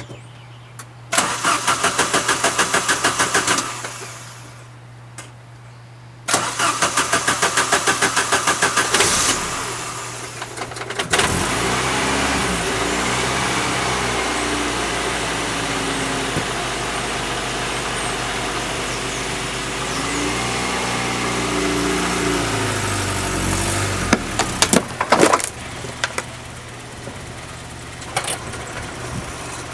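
1990 Saab 900S four-cylinder engine cranked on the starter twice: the first try doesn't catch, and the second catches about eleven seconds in. It settles into an idle whose speed wavers up and down, with a few sharp clicks near the end.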